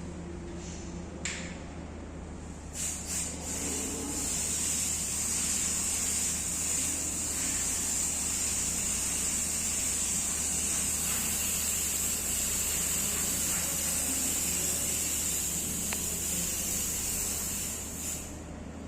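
Aerosol can of liquid penetrant spraying onto a weld test surface: a few short puffs, then one long continuous hiss of spray lasting about fourteen seconds that stops shortly before the end. This is the penetrant-application stage of a liquid penetrant (dye penetrant) test.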